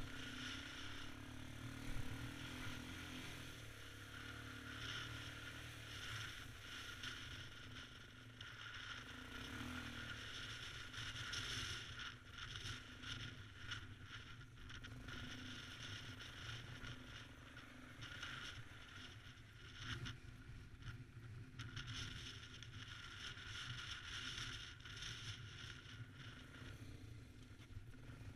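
ATV engine running while the quad rides along at speed, with a steady noisy rush of tyre and wind noise that swells and dips.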